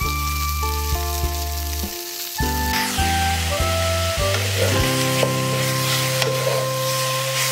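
Sliced pork belly sizzling in a hot pan as it is stir-fried, a wooden spatula scraping and turning the meat, over background music. The sizzling grows stronger about three seconds in.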